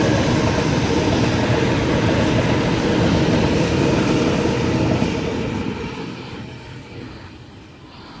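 Series 1 Waratah electric train passing through the station without stopping: a loud, steady rumble of wheels on rail with a faint whine. It fades away from about five seconds in.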